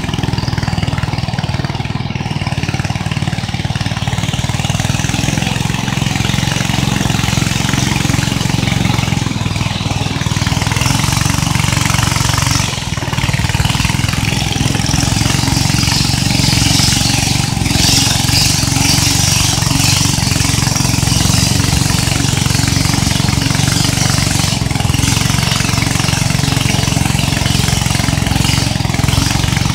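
Outboard motor of a wooden river longboat running steadily under way, a constant low engine drone with a rushing hiss over it. The level dips briefly about thirteen seconds in.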